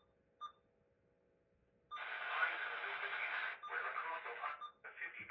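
NOAA Weather Radio broadcast heard through a receiver: two short blips, then from about two seconds in hissy, narrow-band broadcast audio in phrase-length stretches with short breaks.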